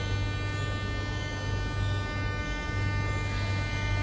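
Steady electrical buzz with a high whine from a standing Moscow Metro 81-717.6 subway train idling at the platform.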